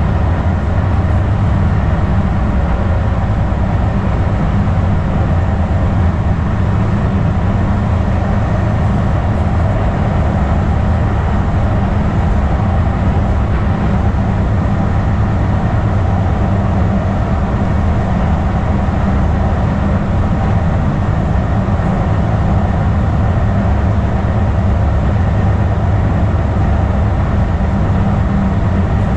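Onboard sound of a Kinki Sharyo electric light-rail car running steadily: a constant low rumble of wheels on track, with faint steady tones over it.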